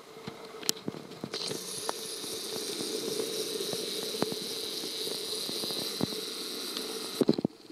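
Panasonic ZS20 compact camera's built-in zoom motor whirring steadily for about six seconds as the lens zooms out. It starts and stops abruptly and ends with a few sharp clicks.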